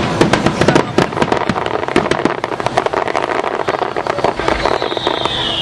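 Starmine fireworks barrage: a dense, rapid run of shell bursts and crackling reports, many per second. Near the end a high whistling tone slides down in pitch over the bangs.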